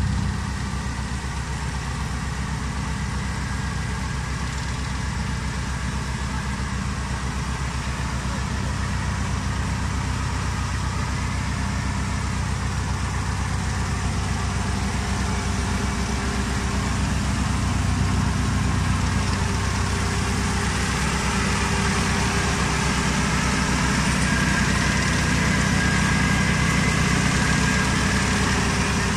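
Engine of an SP-10 blueberry harvester running steadily as the machine works along a row. It grows somewhat louder in the second half.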